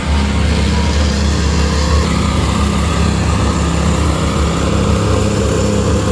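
Diesel excavator engine running steadily at a constant speed.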